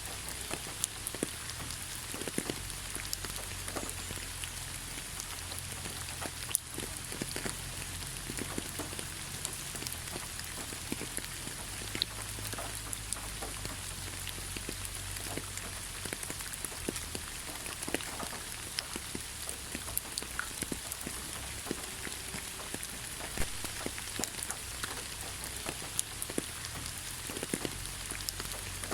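Steady rain falling, an even hiss with scattered sharper drop hits throughout and a low rumble underneath.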